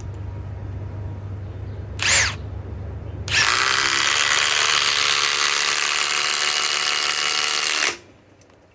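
Milwaukee M18 Fuel Gen 4 impact driver, running on a Flex 24-volt battery through an adapter, driving a 5-inch ledger lock screw: a brief spin about two seconds in, then about four and a half seconds of loud steady hammering that stops suddenly as the screw seats.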